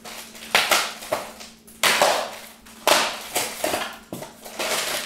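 Plastic packaging being handled: sharp crinkling and rustling in several bursts, roughly one a second.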